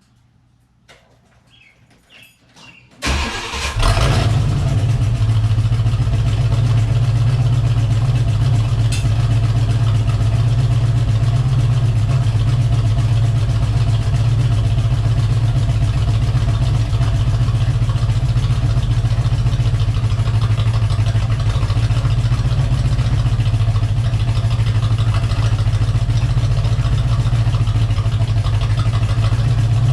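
1985 Corvette's 350 TPI V8 starting up about three seconds in, then running at a steady idle with no revving. A tapping in it is put down by the owner to a lifter.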